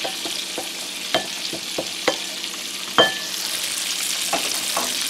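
Beef steaks and garlic cloves frying in oil in a pan: a steady sizzle with a few sharp clicks.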